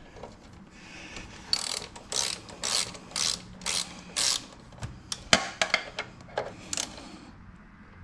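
Socket ratchet wrench clicking as it backs out a 12 mm bolt at the bottom of a motorcycle's front fork leg. It goes in a run of about six strokes, roughly two a second, then shorter clicks with one sharp knock a little past halfway.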